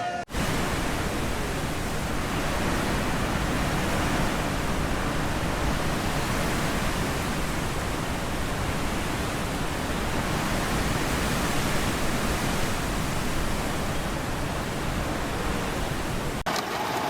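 A loud, steady rushing noise with no distinct tones or events, starting abruptly just after the beginning.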